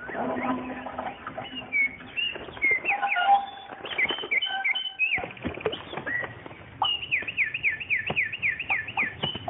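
Birds chirping and calling, ending in a quick run of about eight short falling chirps, with scattered sharp clicks.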